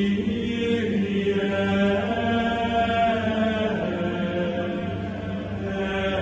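Chanted vocal music over a steady low drone, the voices holding notes and moving to a new one about once a second.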